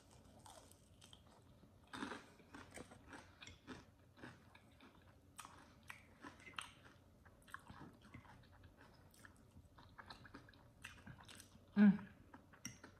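Close-up biting and chewing of crispy fried chicken: a run of short crunches and crackles, loudest about two seconds in. A brief hum of the voice comes near the end.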